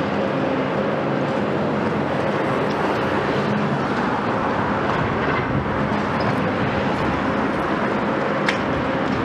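Long-reach demolition excavator (Volvo EC 700 B) running steadily, its Volvo D16 diesel and hydraulics working under load as the attachment breaks concrete. Scattered small cracks, with one sharp crack near the end.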